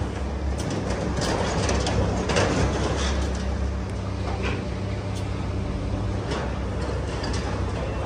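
Machinery running with a steady low hum, with scattered light clicks and knocks over it.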